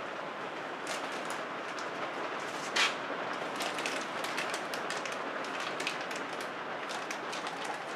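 Clear plastic parts bags crinkling in the hands, with short crackles and one sharper crackle about three seconds in, over a steady hiss of rain.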